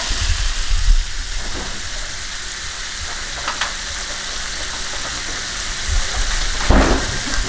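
Noodles frying in browned butter in a pan: a steady, crackling sizzle, with a few knocks from handling the pan, the loudest near the end.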